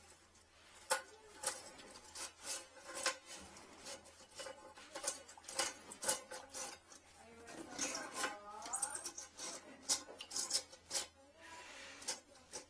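Irregular scraping and clicking of a retrieval tool and drain-camera cable worked inside a porcelain toilet bowl and trap, fishing for a lodged toothbrush.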